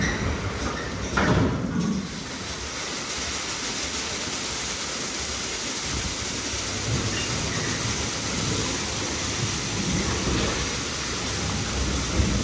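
WashTec SoftCare Pro rollover car wash spraying active foam onto a car: a steady hiss of spray from the gantry's nozzles, with a louder whooshing surge about a second in.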